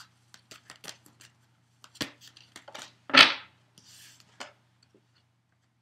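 Deck of oracle cards being shuffled by hand: a quick run of light card clicks, a knock about two seconds in, then a louder slap a little after three seconds as cards hit the table.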